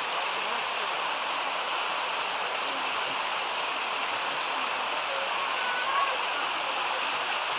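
Steady rush of water tumbling down a mountain stream's waterfall cascade, an even, unbroken noise.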